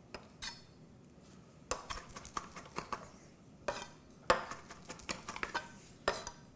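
Kitchen utensils and dishes clinking and knocking in scattered, irregular taps, a few with a short metallic ring.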